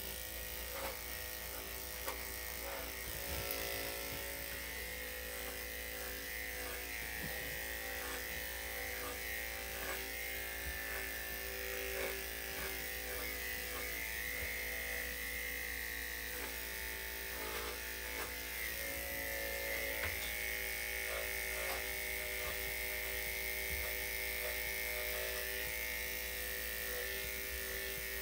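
Electric dog-grooming clippers running with a steady motor hum, with a few faint ticks over it.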